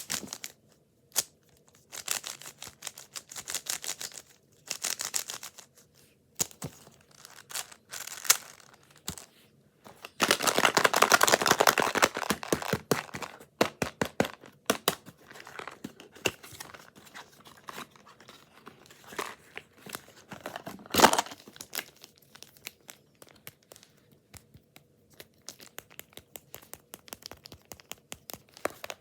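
Plastic Rubik's-type puzzle cubes being turned by hand, the layers clicking and clacking in quick runs. There is a longer stretch of fast, continuous clicking about a third of the way through, and one sharp loud click later on.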